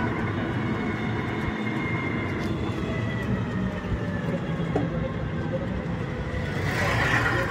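Steady vehicle rumble and road noise heard by a passenger aboard an open-sided rickshaw moving along a street, with a louder rushing swell near the end.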